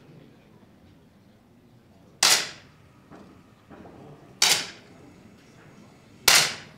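Three 10 m air pistol shots, each a sharp pop with a short ring, a little over two seconds apart.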